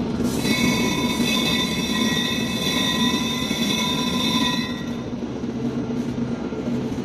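Black pepper roller grinder running with a steady low drone. A high-pitched squeal of several held tones comes in just after the start and stops about two-thirds of the way through.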